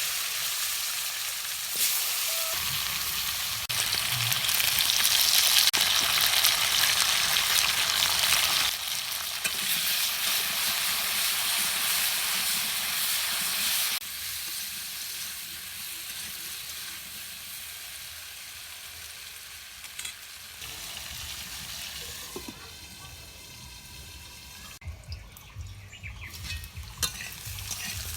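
Potato pieces sizzling as they fry in hot oil in a kadai. The sizzle is loudest in the first half, drops suddenly about halfway, then goes on quieter.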